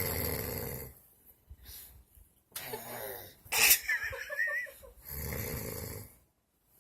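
Heavy snoring: two long snores about five seconds apart, with a sharp snort and a short high, wavering whine between them.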